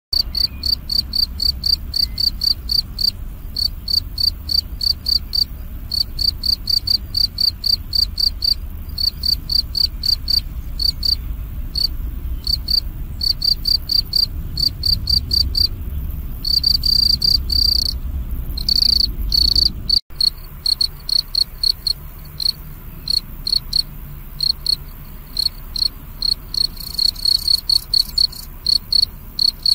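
European field cricket (Gryllus campestris) chirping its calling song: a loud, high, pure chirp repeated about three to four times a second in runs, with a few longer trilled runs about two-thirds of the way through.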